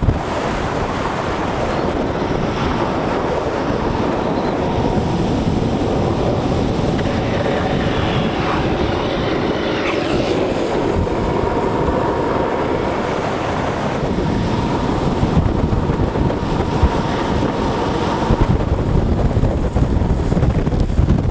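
Wind buffeting the microphone in a steady, loud rush during a fast downhill skateboard run, with a faint steady whine for several seconds in the middle.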